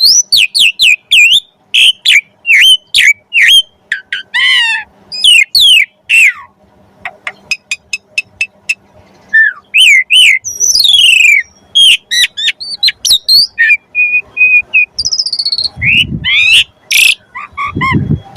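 Pied starling (jalak suren) singing loudly: a fast, varied run of sweeping whistles, slurred falling notes and rapid clicking trills. A brief low rumble sounds twice near the end.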